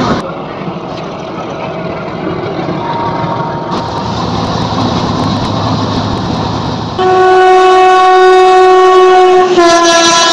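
Train running with a steady rumble, then about seven seconds in a locomotive horn sounds loudly: one long, many-toned blast whose pitch drops slightly near the end as the locomotive passes close by.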